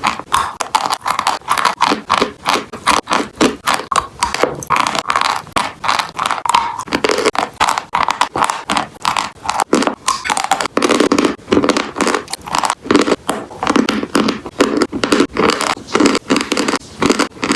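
Close-miked crunching of dry chalk and clay pieces, a rapid, unbroken series of sharp crisp crunches.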